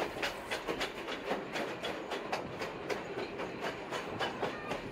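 Wheels of a moving passenger train clicking over the rail joints, an uneven run of several sharp clicks a second over a steady rolling rumble.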